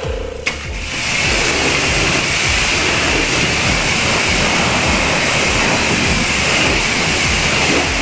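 Pressure-washer spray hissing steadily as it rinses foam off the car's wheel and body panels, starting about a second in. Background music plays under it.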